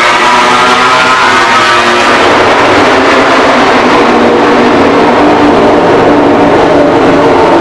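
Honda RC213V MotoGP bike's V4 engine revving hard, its pitch climbing with a brief dip at a gear change. After about two seconds it settles into a steadier, held note as the bike runs down pit lane.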